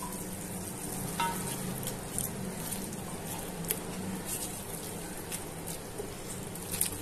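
Chopped vegetables sizzling gently in chili and soy sauce in a metal pot on low heat, with a few light clicks as a silicone spatula stirs them.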